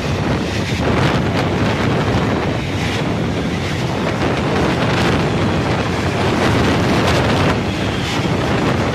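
Loaded freight train of steel-carrying flat wagons rolling past: a steady rumble of wheels on rail with a few faint clacks, overlaid by wind buffeting the microphone.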